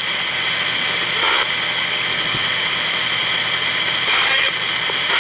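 Ghost box (spirit box) radio sweeping through stations: a steady loud hiss of static broken by brief voice-like snatches about a second in and again about four seconds in. The investigators caption these snatches as spirit voices saying "let her go" and "Brian?".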